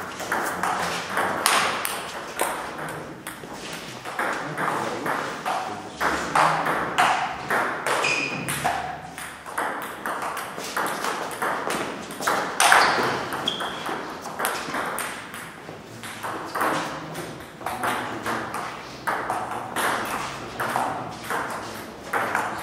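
Table-tennis play: a celluloid ball clicking off rubber bats and bouncing on a Cornilleau 540 table in quick, uneven clicks.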